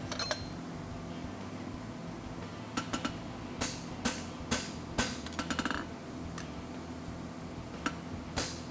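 Hammer blows on a handled punch driving nail holes into the fullered groove of a red-hot steel horseshoe on the anvil. Sharp, ringing metallic strikes: one early, then after a pause of about two seconds a run of blows roughly half a second to a second apart, with a quick flurry of lighter taps near the middle.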